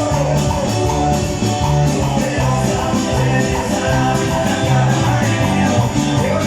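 A live cumbia band playing an instrumental passage with a steady beat.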